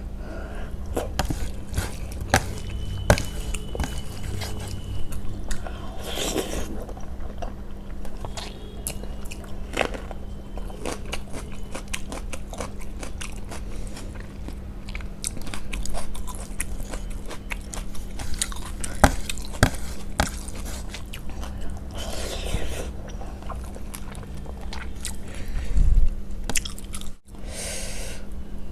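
Close-miked chewing and mouth sounds of someone eating rice and curry: many irregular wet clicks and smacks, with an occasional crunch.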